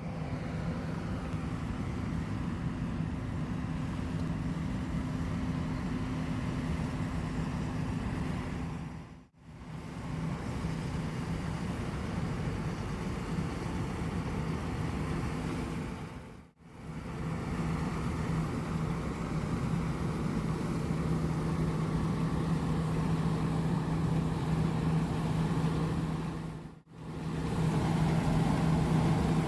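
John Deere S780 combine harvester running while cutting wheat: a steady diesel-and-machinery drone with a low hum. It drops out briefly three times.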